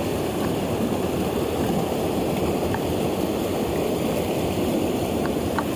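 Rushing water of a mountain torrent, a steady dense noise, with a few faint clicks.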